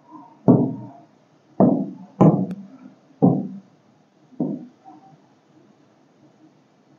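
Stylus and hand tapping on an interactive touchscreen board: five short knocks at uneven intervals of about half a second to a second, ending after about four and a half seconds.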